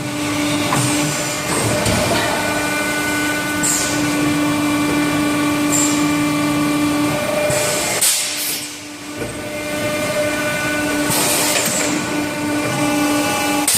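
Plastics production machine running: a steady motor hum with a constant pitched drone, and short hisses of compressed air every two to three seconds. The drone dips briefly around the middle and turns choppy near the end.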